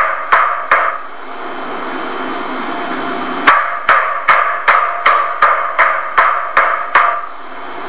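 Meat being pounded with a mallet on a wooden board to tenderise it: sharp, evenly paced blows, about two and a half a second. There are three blows at the start, a pause of about two and a half seconds, then a run of about ten more.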